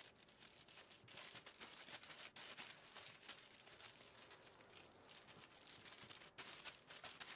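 Near silence, with faint, irregular crinkling of thin plastic freezer bags being squeezed of air and tied by hand.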